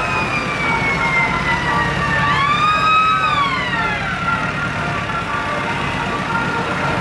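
Sirens wailing, their pitch sliding up and falling away, over the steady low running of vintage military jeep engines driving slowly past.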